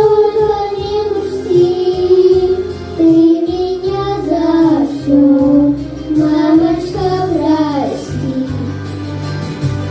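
Two girls singing a slow song with long held notes over an instrumental backing track. The singing stops about eight seconds in and the backing track carries on more softly.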